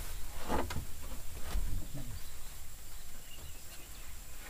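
Swamp ambience: a steady high insect drone with a few short faint bird chirps, and a few light knocks in the first two seconds.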